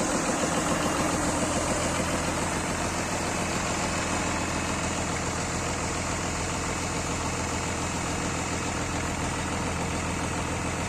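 Freshly overhauled Isuzu 6BG1-T turbocharged inline-six diesel running steadily at idle on its test run, easing down a little in the first couple of seconds.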